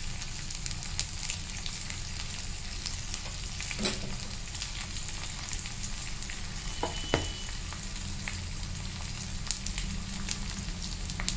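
Garlic cloves, dried red chillies and mustard and cumin seeds frying in hot oil in a kadai for a tempering: a steady sizzle dotted with small crackles, and a couple of sharper pops about 4 and 7 seconds in.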